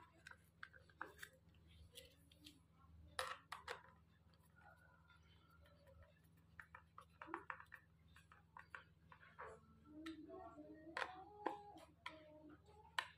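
Faint scattered clicks and knocks from handling a plastic hand-operated cigarette-rolling machine, with a screwdriver turning the screws on its side rail, a few sharper clicks about 3 s and 11 s in.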